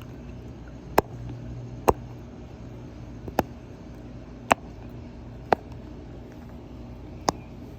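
Silicone pop-it fidget toy bubbles being pressed: six sharp pops at uneven intervals of about one to two seconds, over a steady low background hum.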